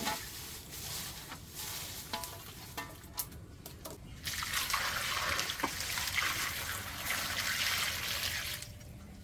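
Water splashing with a few light clicks, then a steady pour of water that starts about four seconds in and stops near the end.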